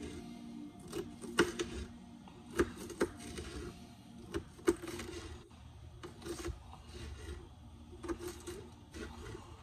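Kitchen knife chopping green bell pepper on a cutting board: irregular knocks of the blade on the board, with a few sharper, louder strikes in the first half.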